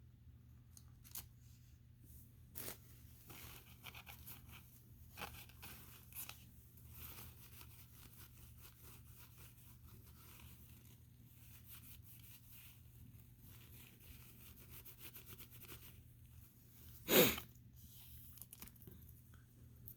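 Faint crinkling and clicking of trading cards and wrappers being handled over a low steady hum. About seventeen seconds in comes one short, loud rip: a card pack's wrapper being torn open.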